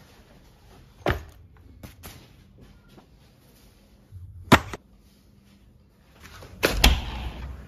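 A few sharp knocks and thumps from someone moving about a small room and setting things down: one about a second in, the loudest a little past the middle, and a cluster near the end.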